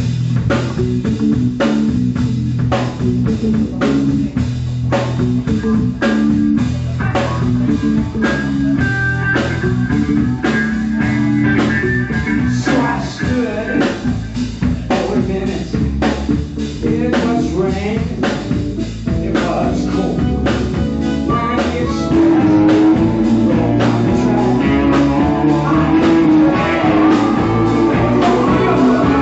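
Live blues band playing an instrumental passage, with a steady drum-kit beat, electric guitar and organ. The band gets louder and a denser lead line comes in about 22 seconds in.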